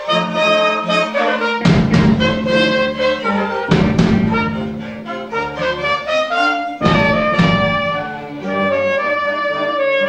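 Youth orchestra playing, with held brass and string notes carrying the tune. Three loud crashes from the drum kit come about two seconds in, four seconds in and seven seconds in.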